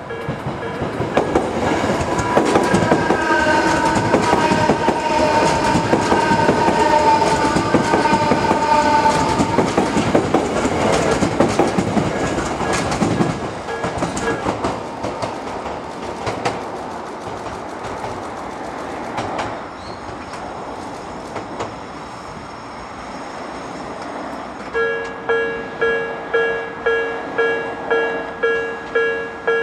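An Odakyu 60000-series MSE electric train runs past close by, its wheels clattering over the rail joints, with a drawn-out whine over several seconds as it goes. Near the end, a level crossing bell starts ringing in quick, even dings.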